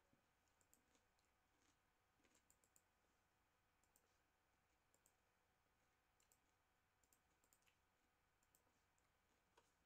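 Near silence, with only faint, scattered short clicks.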